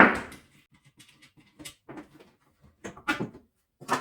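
Handling noise from tool parts being worked by hand: a sharp knock at the start, then faint scattered clicks, and a few louder short clacks about three seconds in and near the end, as a screw on the pole-saw attachment is undone with a key.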